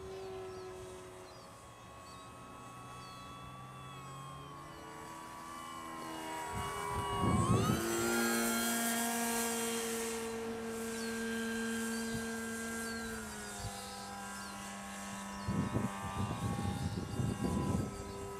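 Multiplex Mentor RC trainer's electric motor and propeller whining in flight. About seven seconds in the pitch climbs sharply as the throttle opens, holds steady for several seconds, then drops back. Wind rumbles on the microphone in gusts.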